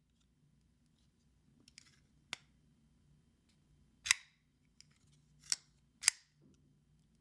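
Shirogorov Stellaris folding knife being worked open and shut, with its pivot screw freshly adjusted: a handful of short, sharp metallic clicks spread out over several seconds, the loudest about four seconds in and two more close together near the end.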